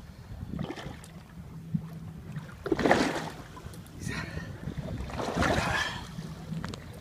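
Wind on the microphone and waves around a small boat on choppy water, with two louder rushes of noise about three seconds and five and a half seconds in.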